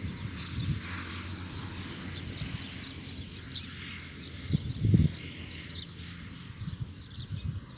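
Birds chirping and twittering in a dawn chorus, many short high calls overlapping. Under them runs a low rumble with a few dull low thumps, the loudest about five seconds in.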